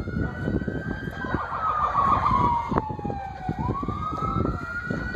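Emergency-vehicle siren sounding a slow wail: the pitch holds high, sinks over about two seconds, then climbs back up about three and a half seconds in and holds high again. Low rumbling street noise runs underneath.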